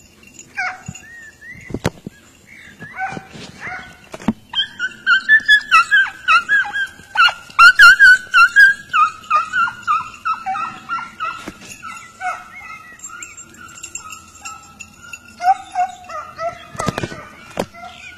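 A pack of hunting hounds baying in quick, high-pitched yelps, the sign of hounds in full cry on a rabbit's trail. The yelping swells to its loudest a few seconds in, then carries on more softly.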